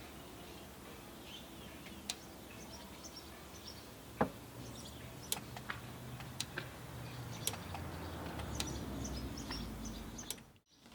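Scattered light clicks and knocks of handling wiring and parts during a vehicle light install, with birds chirping faintly in the background. A low rumble builds near the end and then cuts off suddenly.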